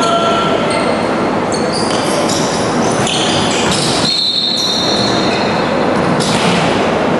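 Basketball game sounds echoing in a gym: the ball bouncing and sneakers squeaking on the court in short high chirps, with a longer high squeal about four seconds in.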